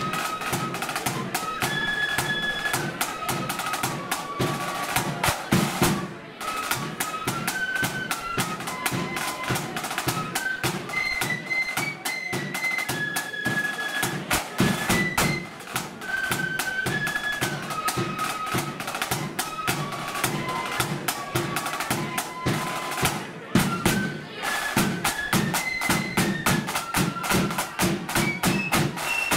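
Marching flute band playing a march: a melody of high flutes over rapid snare-drum beating and a bass drum. The band drops out briefly about six and twenty-three seconds in.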